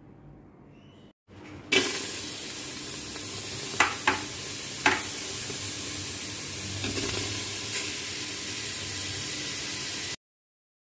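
Sliced onions frying and sizzling in a metal pressure-cooker pot with a steady loud hiss that starts abruptly about two seconds in, broken by a few sharp utensil knocks against the pot around the second to fifth seconds.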